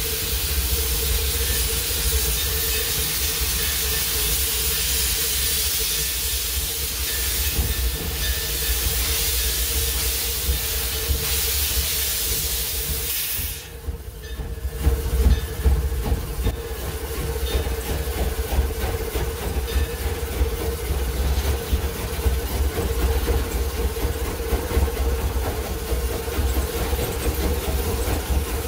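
Steam locomotive heard from inside its cab: a loud steam hiss over a steady hum and low rumble, then about halfway through the hiss falls away and the running engine rumbles with a busy rattle and clatter.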